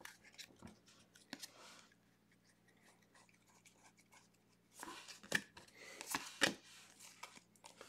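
Stack of trading cards being handled and flipped through by hand: faint sliding and light clicks of card against card, with a few sharper clicks and scrapes in the second half.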